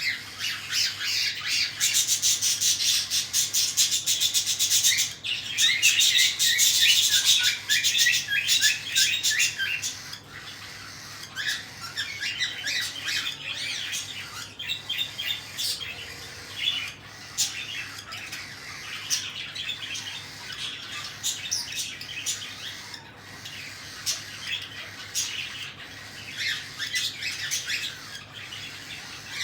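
Cockatiel chicks giving rapid, raspy begging calls while being fed, loudest and densest for the first ten seconds, then softer scattered chirps.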